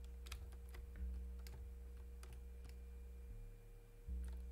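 Faint scattered clicks from a computer keyboard and mouse, over a low steady hum that shifts in level a few times.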